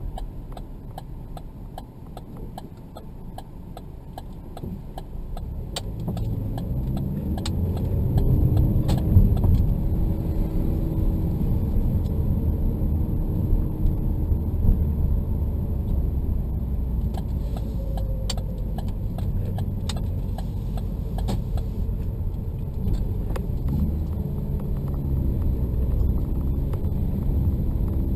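Car driving, heard from inside the cabin: engine and tyre rumble that grows louder about six seconds in as the car climbs a steep street, with small clicking rattles throughout.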